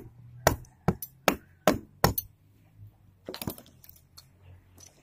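Hammer blows with a sharp metallic clink, five in quick succession about 0.4 s apart, then a short run of lighter knocks about three and a half seconds in.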